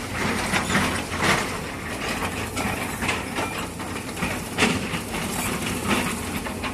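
Excavators working on a rockfall: engines running under an irregular clatter of clanks and scraping as buckets move rock.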